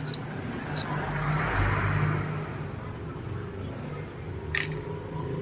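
Daan Hari 186 motorcycle engine running steadily, swelling a little about a second in, with a few sharp metallic clicks, one near the start and one near the end.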